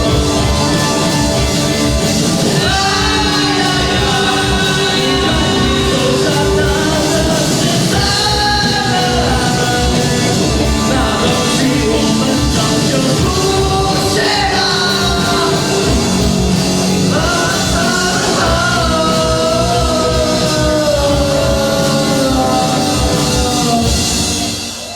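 Rock band playing live, with a sung lead vocal over a steady drumbeat and full band. The music stops near the end.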